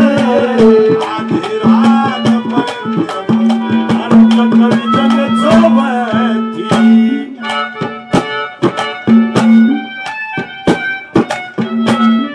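Instrumental interlude of Haryanvi ragni folk music: a harmonium holds a steady drone note under a melody, with hand-drum strokes that become much busier about halfway through.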